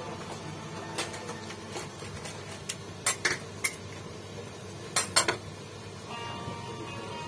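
Rotary pizza cutter clinking and scraping against a metal serving tray as a pizza is sliced: a string of sharp metallic clicks, the loudest two pairs about three and five seconds in.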